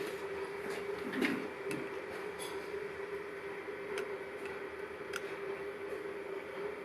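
A few light, sharp metal clicks and taps from small hand tools such as tweezers being worked at a bolt hole in a cast exhaust manifold, over a steady hum.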